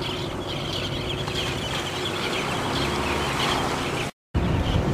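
A large flock of seabirds taking off and calling together in many short, high cries, over a steady low hum.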